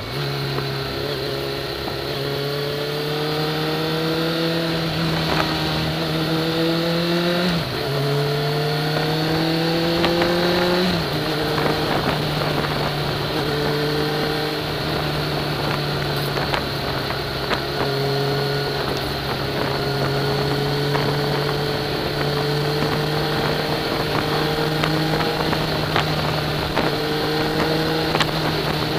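Sport motorcycle engine heard from the rider's seat, accelerating: its pitch climbs, drops sharply at upshifts about seven and a half and eleven seconds in, then holds a steady cruise. Wind rushes over the microphone throughout.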